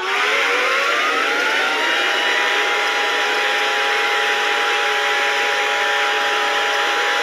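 Civil defense siren winding up, its pitch rising over about two seconds, then holding a steady chord of tones over a rushing whir.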